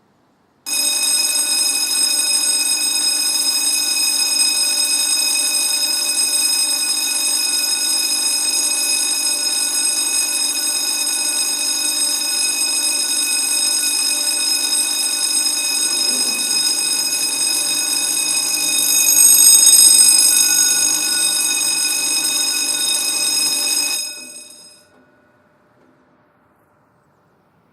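Railroad crossing warning bell ringing steadily, starting about a second in, swelling briefly louder about two-thirds of the way through, then stopping and fading out about three seconds before the end.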